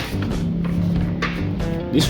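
Background instrumental music with steady sustained notes.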